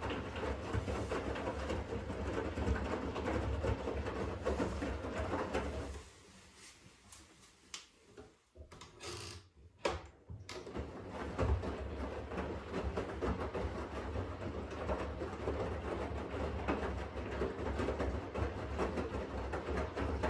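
Siemens washing machine drum turning during the wash with a low rumble, on its intensive wash rhythm. About six seconds in the drum stops for roughly four seconds, a few clicks sound, and it starts tumbling again.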